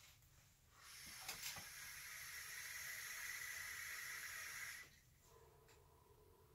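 Long draw on a single-coil vape tank: a faint, steady hiss of the draw for about four seconds, then a soft exhale of vapour.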